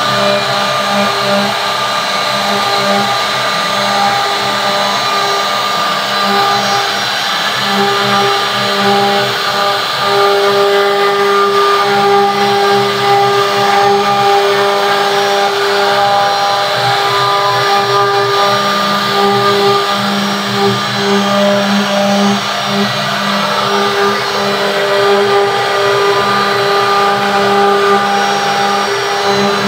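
CNC wood router carving a relief into a wooden panel: the spindle motor runs with a steady whine over the noise of the bit cutting the wood.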